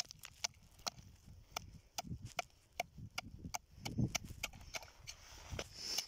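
Hatchet blade chopping ice around a frozen-over ice-fishing hole: quick, uneven sharp strikes, about three a second, some landing with a duller thud.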